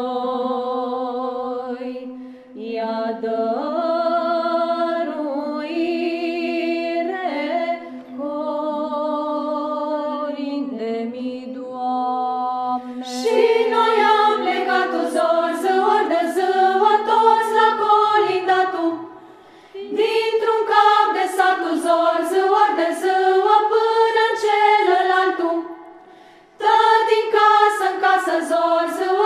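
Women's choir singing a Romanian carol a cappella. For the first twelve seconds or so a melody moves over a steady held low note; then, about 13 s in, the full choir comes in louder in swelling phrases with two short breaths between them.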